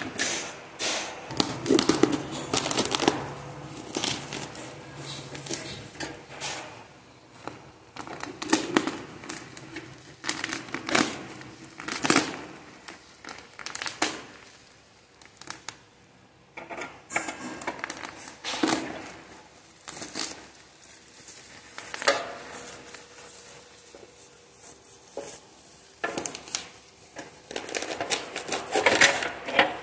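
Packing tape and bubble wrap being torn and crumpled by hand: irregular rips and crinkles as a wrapped parcel is opened.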